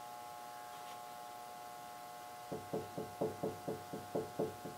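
A quick run of about ten soft taps, roughly four a second, starting a little past halfway in, over a faint steady electrical whine.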